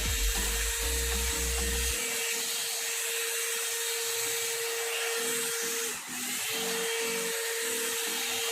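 One-step hair dryer and styler (hot-air brush) running, a steady rush of air with a motor whine; the whine drops out briefly about six seconds in and then picks up again.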